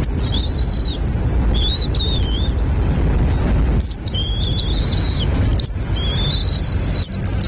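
Birds calling in high, whistled, wavering chirps, in four bouts of about a second each, over a steady low rumble.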